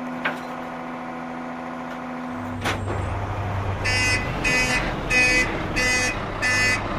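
Garbage truck sound effect: the engine runs with a steady hum, settles into a lower rumble about two seconds in, then the reversing alarm starts beeping, about one beep every 0.6 seconds from about four seconds in, as the truck backs up to the rubbish heap.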